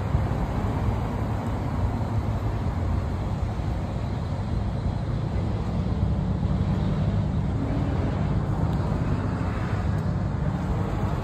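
Steady low rumble of vehicle noise, with no distinct events.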